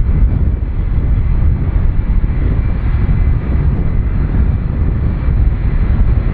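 Boeing 757 freighter's twin Rolls-Royce RB211 turbofans running at low power as the jet rolls slowly on the runway: a steady low rumble with a faint high whine.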